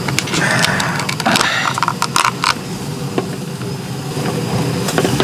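Wooden chopsticks scraping and tapping thick red chili sauce out of a paper cup onto a rice bowl: a run of clicks and scrapes in the first half, over a steady low rumble.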